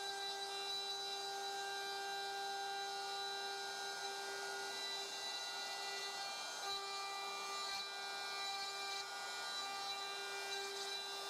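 DeWALT DCW600 cordless compact router in a DNP612 plunge base, running at speed with its bit cutting wood: a steady high motor whine over the rasp of the cut.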